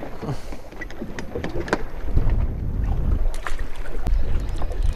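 Wind buffeting the microphone, a low rumble that grows heavier about two seconds in, with scattered light clicks and taps before it.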